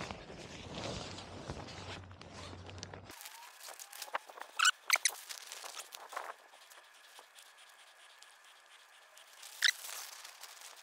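Handling noise while a tarp tent is pitched: rustling of the tarp fabric, then after an abrupt change a quieter stretch with a few short, sharp squeaks.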